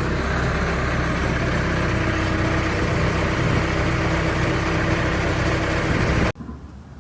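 An engine idling steadily, then cutting off abruptly about six seconds in.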